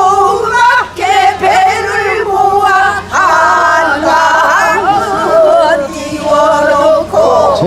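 A group of women singing a Korean folk song together in unison, unaccompanied, with long held notes that waver and bend in pitch.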